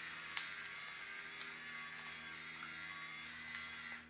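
Electric pepper mill grinding peppercorns: a steady motor buzz with a few sharp cracks, cutting off near the end.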